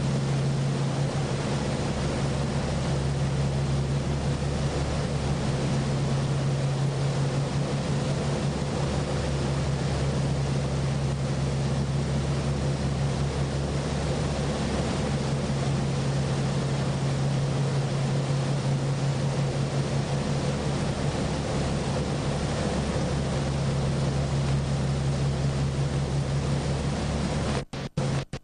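Motorboat engine running at a steady cruising speed: an unchanging low drone with rushing wind and water over it. The sound cuts out twice, very briefly, near the end.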